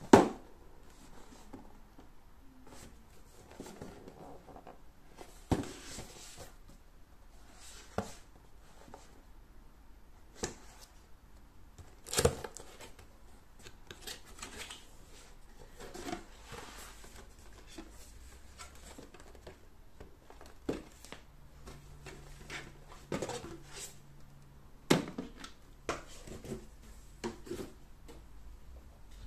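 Cardboard packaging being handled and opened by hand: scattered taps, scrapes and rustles of the box and its flaps, with a few sharper knocks, the loudest about twelve seconds in.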